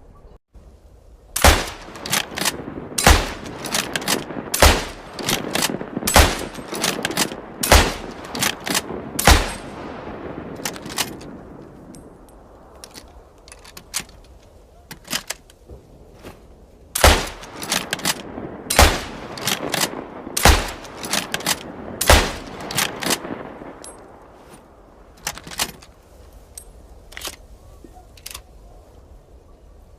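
Carcano M1891 bolt-action rifle firing, with its 6.5×52mm Carcano round (calibre from general knowledge). A string of six shots comes about a second and a half apart, each with a rolling echo, and lighter bolt clicks fall between them. After a pause a second string of four shots follows, then scattered metallic clicks near the end.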